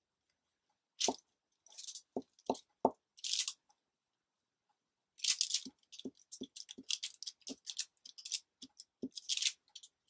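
Glue stick being uncapped and rubbed over a small paper circle: short scratchy swipes, several light knocks and clicks, with a quicker run of taps in the second half.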